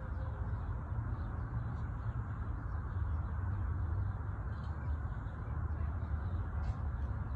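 Steady outdoor background noise, mostly an even low rumble with a hiss above it, holding at one level throughout.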